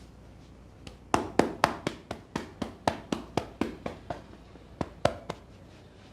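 Hands slapping and tapping on a person's head in an Indian head massage: a quick run of about a dozen sharp slaps at roughly four a second, then three more after a short pause.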